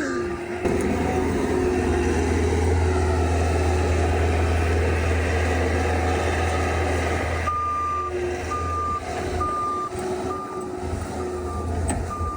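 Skid steer's diesel engine running steadily under load. From about halfway through, its reversing alarm beeps at one pitch, a little faster than once a second, as the machine backs up.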